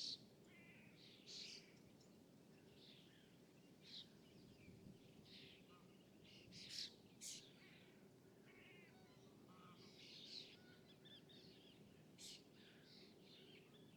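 Small songbirds chirping and calling in short, scattered bursts, several calls overlapping. Under them runs a faint, steady low background hum.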